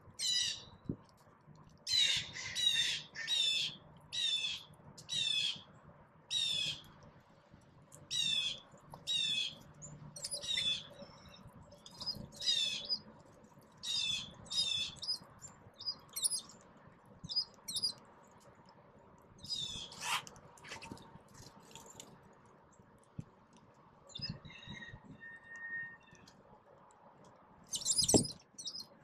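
Small songbirds chirping, a long run of short harsh calls about one or two a second that thins out in the second half. Near the end a brief, louder flutter as a bird takes off.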